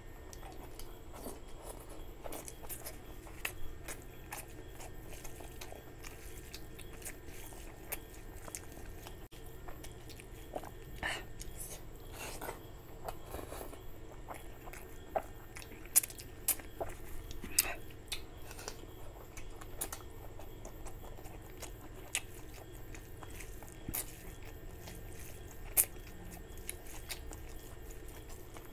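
A person chewing and biting a meal of curry and rice eaten by hand, close to the microphone: wet mouth sounds with many short sharp clicks, a few louder ones in the second half.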